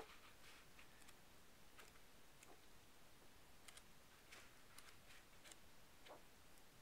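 Near silence: room tone with a few faint, irregularly spaced light clicks.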